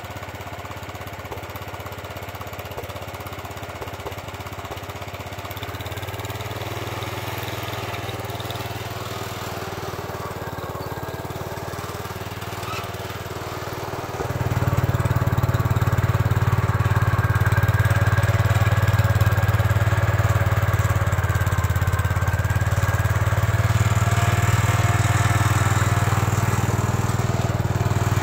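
The Kohler engine of a 1968 Gravely Commercial 12 walk-behind tractor runs steadily while the tractor pushes snow with its plow blade. About halfway through it suddenly grows louder as the tractor comes close, then holds steady, showing no strain under the snow load.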